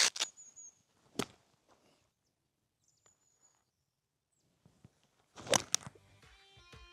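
Quiet outdoor air broken by a few sharp clicks and taps, with a faint thin high whistle. Held musical notes come in near the end.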